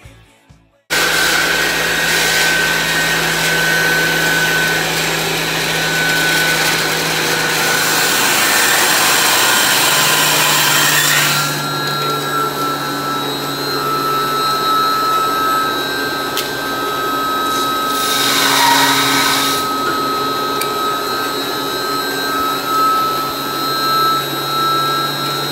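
Booster pump station running: a loud rushing hiss of pumps and piping with a steady high whine and a low hum. The whine drops slightly in pitch about eleven seconds in, and the hiss briefly gets louder about nineteen seconds in.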